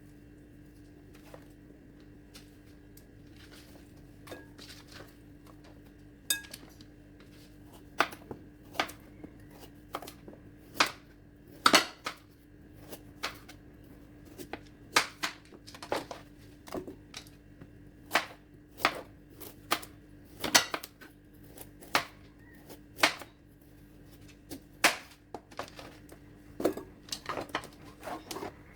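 Knife chopping vegetables on a cutting board: sharp, irregular knocks, about one or two a second, starting several seconds in, over a faint steady hum.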